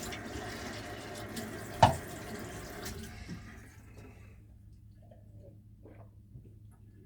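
Water running from a tap into a sink, stopping about three to four seconds in. A single sharp knock sounds about two seconds in, the loudest thing heard, followed by a few faint small clicks.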